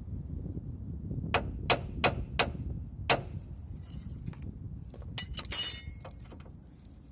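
Hammer blows on metal: four quick sharp strikes in a row, a fifth a little later, then a ringing metallic clatter a couple of seconds after, as of a steel tool set down.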